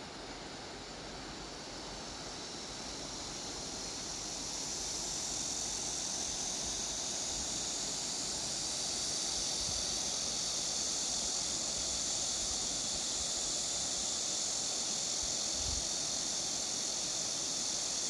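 Cicadas buzzing in a steady, high chorus that grows louder about four seconds in, over the even rush of a shallow river flowing over stones.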